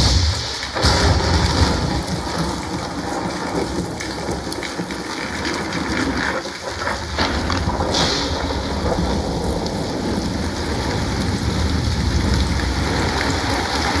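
A thunderstorm soundtrack of steady rain and deep rumbling thunder with heavy bass, played through a Klipsch Bar 40 soundbar and its wireless subwoofer. A brighter burst of noise comes about eight seconds in.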